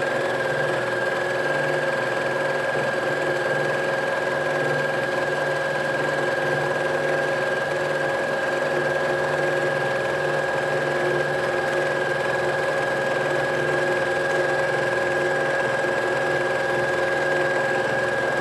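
Janome sewing machine on a quilting frame running steadily without a break, stitching free-motion quilting through the quilt layers: an even motor whine with the needle's fast chatter.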